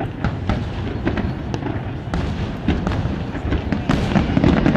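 Fireworks display: a quick, irregular string of sharp bangs and crackles over a continuous low rumble of distant booms.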